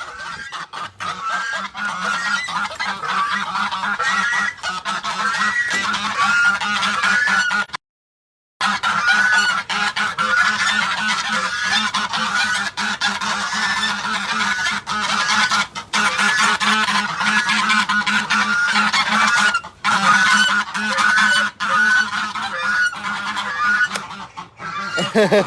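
Geese honking, many overlapping calls almost without pause. About eight seconds in, the audio briefly drops out completely.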